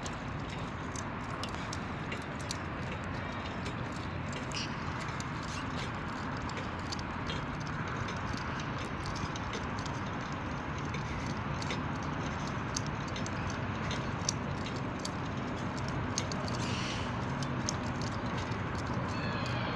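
Steady outdoor background noise with scattered faint clicks and ticks throughout.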